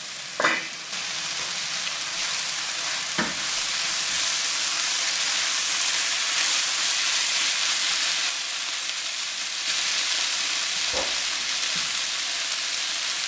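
Green beans curry sizzling steadily in a non-stick pan while it is stirred with a spatula, with a few short knocks of the spatula against the pan, the loudest about half a second in.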